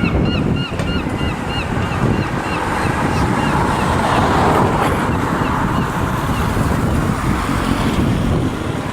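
A bird calls in a quick series of short, falling notes, about three a second, which fade out after the first couple of seconds. Under the calls runs a loud, steady rushing noise that swells around four to five seconds in.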